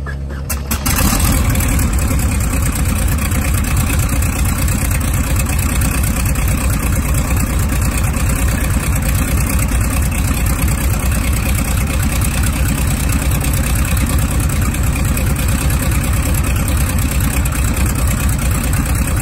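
Vintage biplane's radial engine catching about a second in after a quieter moment of cranking, then running steadily on a cold start.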